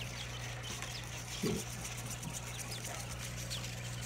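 Newly hatched quail chicks peeping: short, high chirps that slide downward, scattered here and there, over a steady low hum. A soft low thump comes about a second and a half in.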